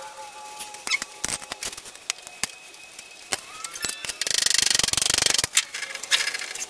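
Metal hand tools and parts clicking and knocking on a workbench as they are handled, with a run of rapid, evenly spaced clicks lasting about a second just past the middle.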